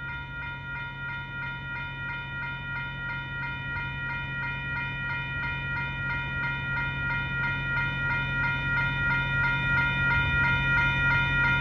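Railroad crossing warning bells ringing in a fast, steady rhythm, sounding continuously because a stopped train is occupying the crossing. A steady low hum runs underneath.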